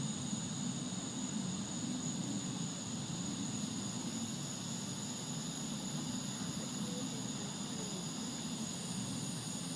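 A steady, low droning hum of unknown origin from the sky, the kind reported as a "skyquake". Behind it, a constant high-pitched chirring of insects such as crickets.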